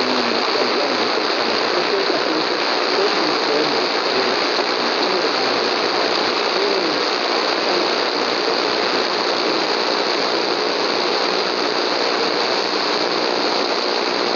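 Steady AM radio static from a Retekess V115 portable receiver tuned to 1080 kHz: an even hiss and crackle, with a faint wavering signal just audible under it in the first half. It is the sound of a weak long-distance AM station barely above the noise.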